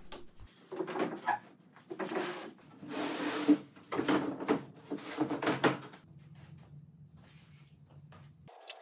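A long sheet of mahogany plywood being flipped over and laid down on a wooden work table: a run of scraping, sliding and knocking sounds as the sheet flexes and slides across the table boards, the loudest knock about three and a half seconds in, dying away after about six seconds.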